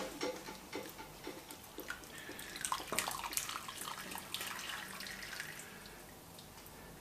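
Cooking liquid running and dripping back into a stockpot as a bunch of boiled dill is lifted out with metal tongs, with light clicks of the tongs against the pot in the first couple of seconds. The running water is heaviest around the middle and thins to drips near the end.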